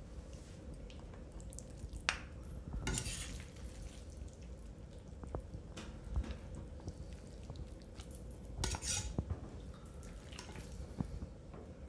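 Knife and fork lightly clinking and scraping against a glazed ceramic serving bowl and plate while stringy pasta is lifted out and served. Two louder brief brushing noises come about three seconds in and again near nine seconds.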